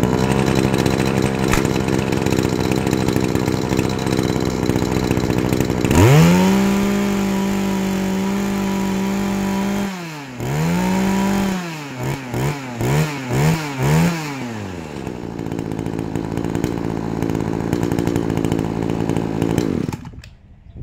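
Kawasaki TJ27 two-stroke brush-cutter engine idling, then revved to high speed about six seconds in and held there for about four seconds. It is blipped through five quick revs, settles back to idle, and is shut off near the end.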